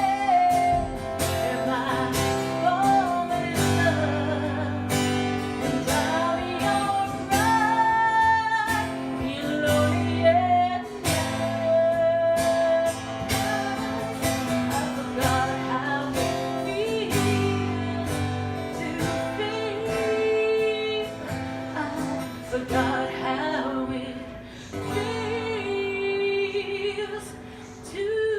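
A song with a woman's singing voice over guitar and a steady beat.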